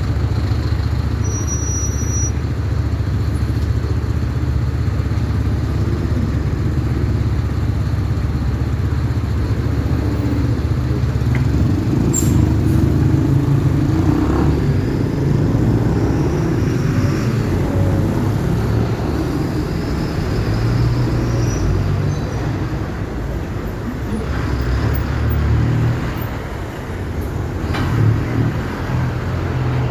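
Mercedes-Benz 1519 diesel engines running, a steady low drone that changes and grows a little louder about twelve seconds in.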